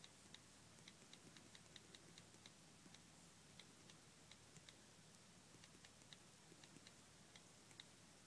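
Faint key clicks from an iPad's on-screen keyboard as a caption is typed: an irregular run of quick, light ticks, several a second at times.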